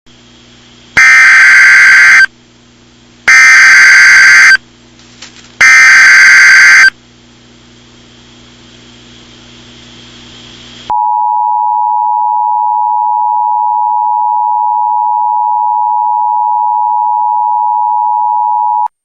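Emergency Alert System tones: three loud, buzzing bursts of SAME header data, each a little over a second long, over a faint hum, then after a pause the steady two-tone EAS attention signal, held for about eight seconds before it cuts off sharply. The tones mark the start of a new alert message.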